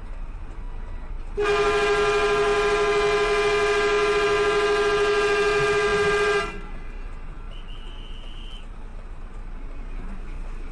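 Truck horn sounding one long steady blast of about five seconds, starting over a second in, over the low steady rumble of an idling truck engine.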